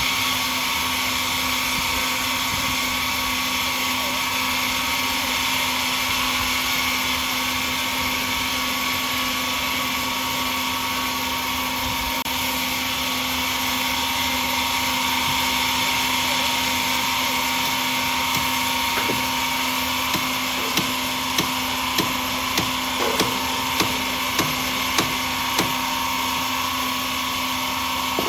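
Sawmill machinery running steadily with a continuous hum and whine. Near the end, about ten sharp ticks come evenly, roughly one every 0.6 seconds.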